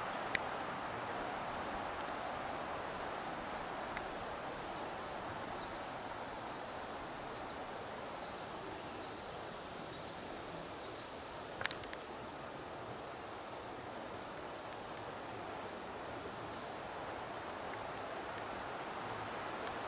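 Outdoor ambience: a steady background hiss with a run of short, high chirps repeating about once or twice a second. A sharp click comes near the start, and a louder one a little past the middle.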